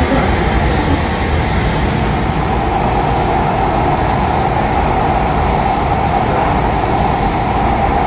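Steady running noise inside a moving light rail car: the wheels and drive rumbling on the track, with the car's air conditioning on.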